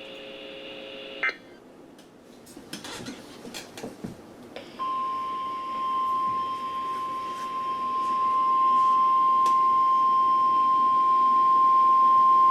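A few faint clicks, then the NOAA Weather Radio warning alarm tone: a single steady high beep that starts about four and a half seconds in and holds. It signals that a warning, here a tornado warning, is about to be broadcast.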